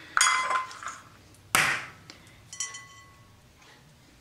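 Eggs being handled and cracked against a ceramic mixing bowl: a short ringing clink near the start, a sharp tap about a second and a half in, the loudest, and a lighter clink a second later.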